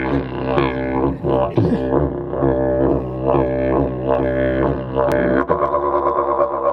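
Didgeridoo playing a continuous drone, its overtones shifting in a steady rhythm; about five and a half seconds in the rhythm gives way to a steadier held tone.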